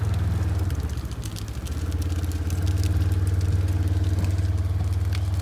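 Engine of a GMC Sierra Denali heavy-duty pickup running at low speed as the truck creeps forward, a steady low hum that dips briefly about a second in and then picks up again.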